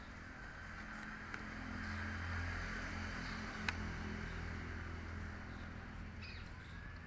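A low engine hum that swells toward the middle and eases off again, with a single sharp click a little past halfway.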